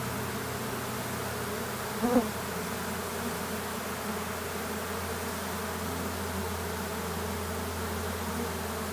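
Steady buzzing of a mass of honeybees, the cut-out colony just dumped out of a bucket and streaming into a hive box. A brief louder sound about two seconds in.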